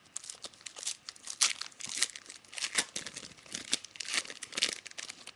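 Plastic wrapper of a trading-card pack being torn open and crinkled: a rapid run of short crackling rips and rustles that stops near the end.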